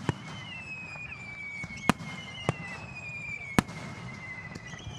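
Aerial fireworks bursting with sharp bangs, about five in all, the loudest about two and three and a half seconds in. Between the bangs run a steady rumble and high whistling tones that slide slowly down in pitch.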